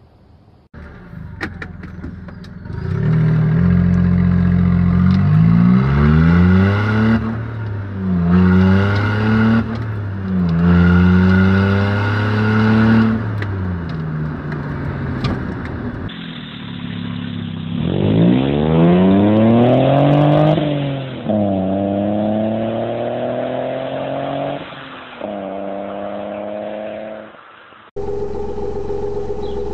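Smart Fortwo 800cdi's 799 cc three-cylinder turbodiesel accelerating hard through the gears. Its note climbs and then drops at each upshift, about six times in all. Near the end it cuts to a Subaru Justy's 1189 cc three-cylinder engine running at a steady pitch.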